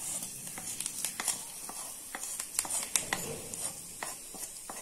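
Hot tempering oil, with mustard seeds, dals, shallots and curry leaves, sizzling on a bowl of bottle gourd chutney: a steady low hiss with scattered small crackles and pops.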